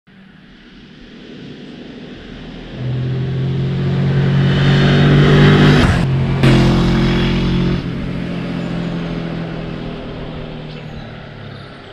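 A motor vehicle's engine running, growing louder to a peak about halfway through, briefly breaking off, then fading away.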